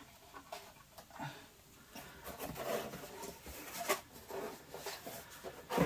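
Rustling and light clicks and knocks of cardboard and plastic packaging being handled as the next boxed figure is taken from the box.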